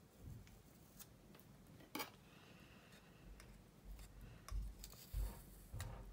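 Faint handling sounds of a plastic model-kit fuselage and a thin metal glue applicator worked along its seam: small clicks and taps, one sharper click about two seconds in, and several dull bumps in the second half.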